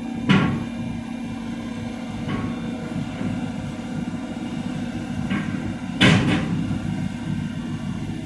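Excavator's diesel engine running steadily, with a loud metallic clank about a third of a second in and another, doubled clank around six seconds, plus fainter knocks between.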